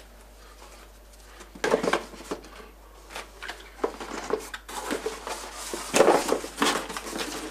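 Handling of fireworks in a cardboard box: irregular knocks, taps and rustling of cardboard and packaging as items are rummaged through. It starts about a second and a half in and gets busier in the second half.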